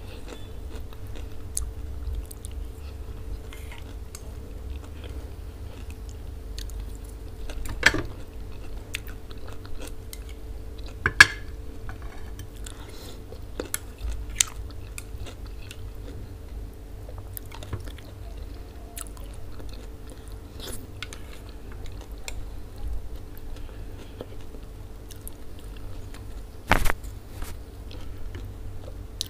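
Close-miked chewing and biting of okra stew with lamb and rice. A spoon scrapes and clicks against a ceramic plate now and then, loudest in sharp clicks about 8, 11 and 27 seconds in.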